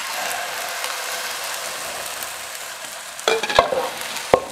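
Beaten eggs sizzling as they are poured into a hot electric skillet of rice, a steady hiss that starts suddenly and slowly fades. A wooden spoon stirring knocks and scrapes against the pan a few times from about three seconds in.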